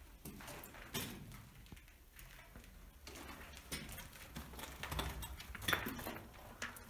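Footsteps and scuffing over a debris-strewn floor, with irregular small clinks and knocks; louder knocks come about a second in and again near the end.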